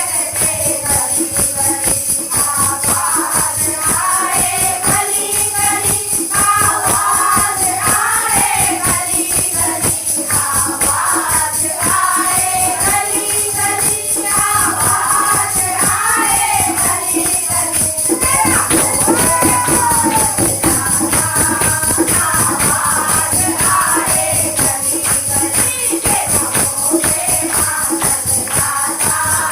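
Hindi devotional bhajan to Mata Rani sung by a kirtan group, with continuous jingling tambourine-type percussion and a fast, dense beat under the melody.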